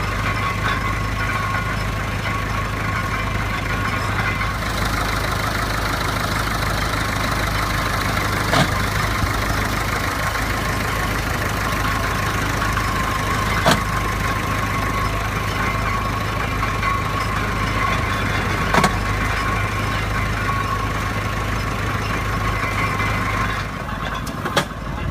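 An engine running steadily, with a sharp knock about every five seconds. The engine sound stops near the end.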